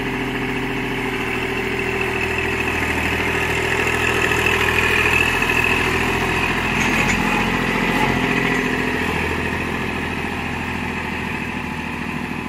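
Kubota compact tractor's diesel engine running at a steady low speed as the tractor drives past. It grows louder about halfway through, then fades as the tractor moves away.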